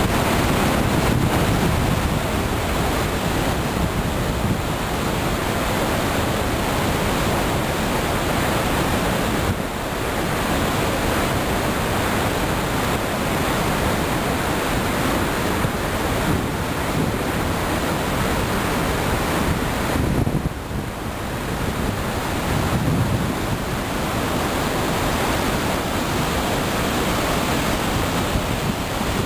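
Roar of Iguazu Falls: a steady, heavy rush of water pouring over the cataracts and churning through the rapids below, dipping briefly twice.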